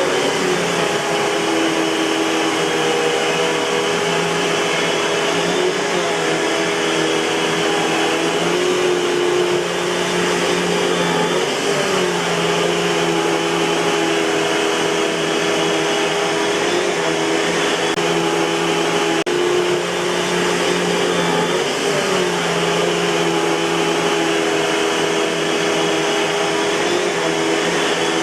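Eureka Boss 6833B canister vacuum cleaner running steadily, a loud whooshing motor hum whose pitch shifts slightly every few seconds.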